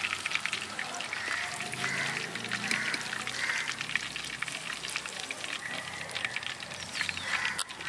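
King fish steaks deep-frying in hot oil in a clay pot: a steady sizzle full of small crackles.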